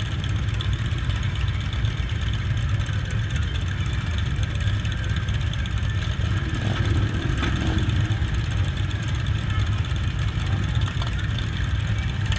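Motorcycle engines idling and running steadily at a low pitch.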